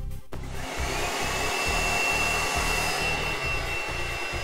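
Repurposed vacuum cleaner motor, wired in reverse to blow air, switching on just after the start when its motion sensor is set off, then running with a steady rush of air and a high whine.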